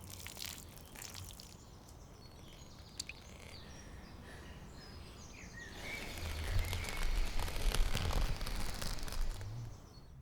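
Outdoor countryside ambience with faint bird chirps. About six seconds in, a louder rushing noise with a low rumble sets in, then cuts off suddenly near the end.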